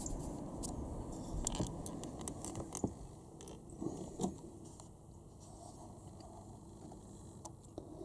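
Scattered faint clicks and scrapes of a handheld camera being handled, settling after about four seconds into quiet indoor room tone.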